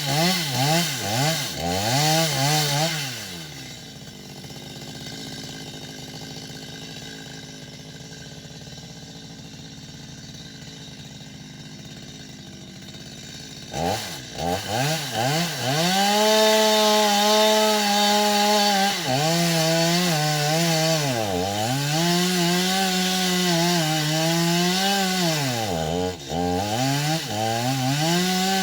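Two-stroke chainsaw blipped up and down a few times, then dropping to a quiet idle for about ten seconds. About fourteen seconds in it is opened up to full throttle and held there for a cut, with the revs sagging and recovering several times.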